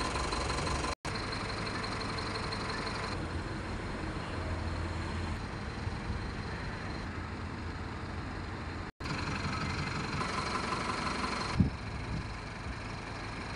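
Tata LPT 1109 diesel truck engine idling steadily. The sound drops out abruptly for an instant twice, about a second in and about nine seconds in, and there is one sharp click near the end.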